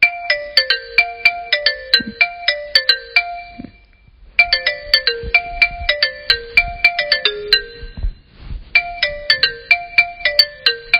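A phone ringtone: a short melody of quick, sharply struck notes, played three times with a brief pause between repeats.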